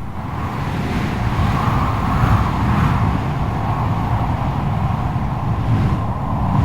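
FPV racing drone's motors and propellers whining, the pitch wavering up and down around a steady level as the throttle changes, over a constant rush of wind noise.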